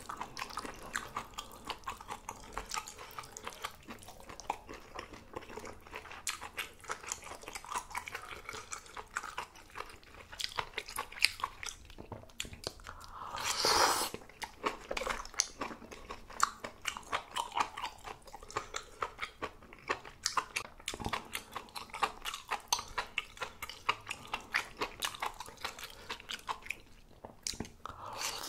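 Close-miked eating of malatang: steady chewing and biting with many quick clicks, and a louder, longer rush of noise about halfway through.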